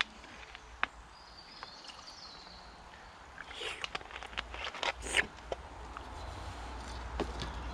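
Light clicks and knocks of things being handled, bunched in the middle, with a low rumble building in the second half.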